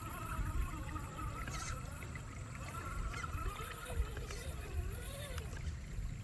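RC car driving through water: a thin motor whine rising and falling with the throttle over a steady low rumble, with some watery noise.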